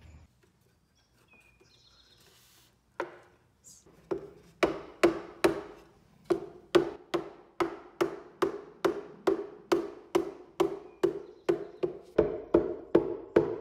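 Steady knocking, like a hammer or mallet striking, about three blows a second, each with a short ringing note; it starts about three seconds in.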